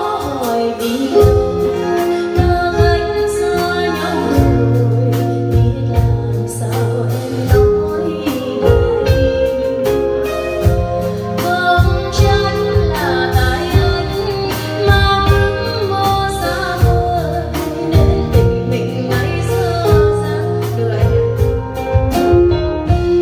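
Live band music: a woman sings into a microphone over electronic keyboard and guitar accompaniment, with a steady drum beat and bass.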